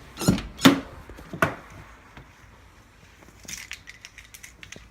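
Metal hand tools, a ratchet and socket, being handled and set down: three sharp knocks in the first second and a half, then light clinks near the end.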